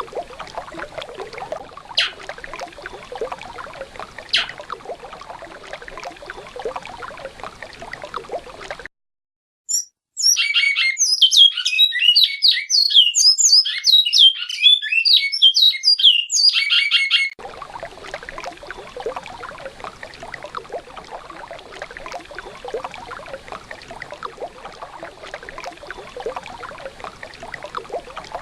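Recorded river water running steadily, cut off by a brief silence, then about seven seconds of a bicudo (great-billed seed-finch) singing its fast, varied whistled song in the classic Alta Mogiana style, loud and clear, before the water sound resumes.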